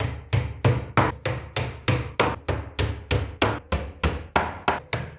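Hammer driving small nails through a thin fibreboard back panel into the edge of a chipboard furniture carcass: quick, even blows, about four a second.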